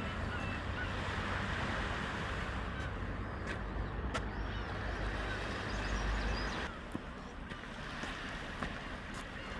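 Strong wind buffeting a parked car, heard from inside the cabin: a steady rush with a low rumble that swells and then eases about seven seconds in, with a few light ticks.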